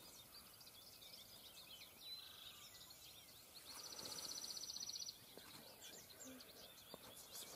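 Faint birdsong: scattered thin chirps, and about halfway through a small songbird's rapid, even trill lasting about a second and a half.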